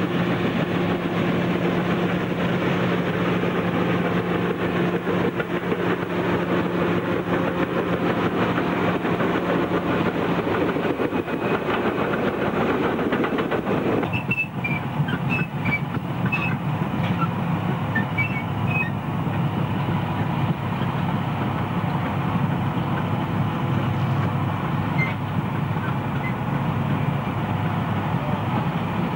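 Caterpillar crawler dozer and wheel tractor-scrapers at work: big diesel engines running under load with the clank of steel tracks. A steady engine note holds through the first half. After a change about halfway, several machines run together during push-loading, with a few short high squeaks.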